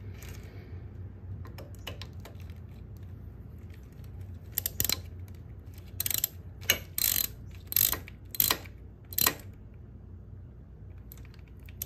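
Hand ratchet clicking in short strokes as it snugs up the hex bolts of a tractor's PTO solenoid valve, about eight bursts in the middle of the stretch, over a low steady hum.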